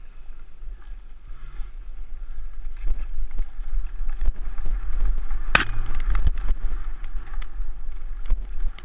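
Mountain bike riding along a dirt singletrack: a steady low rumble of tyres and wind on the microphone, with scattered clicks and knocks as the bike goes over bumps, the loudest a little past halfway.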